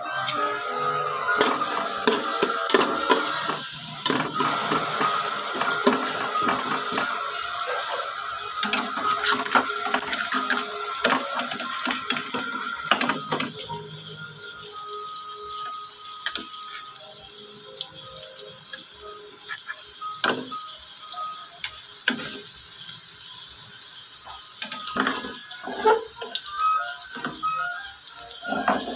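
Chopped onion sizzling in hot oil in a large aluminium pot: a steady frying hiss with scattered small pops and crackles.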